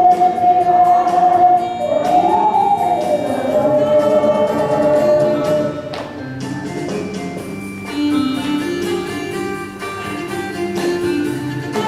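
Ocarina ensemble playing a song while a crowd of voices sings along; the music eases off a little about six seconds in.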